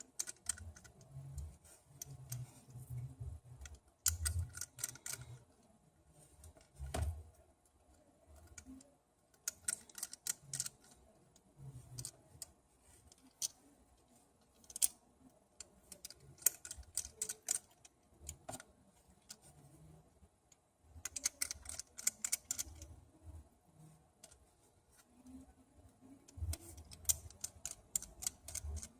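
Small handheld repair tools clicking and tapping against a phone's metal and glass parts and the work surface, in irregular bursts of quick sharp clicks with a few soft knocks in between.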